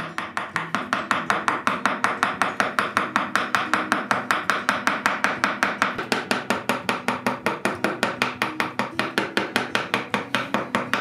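Round wooden carver's mallet tapping a carving gouge into a hardwood slab in quick, even strokes, about six or seven a second, as the gouge pares out wood for an inlay.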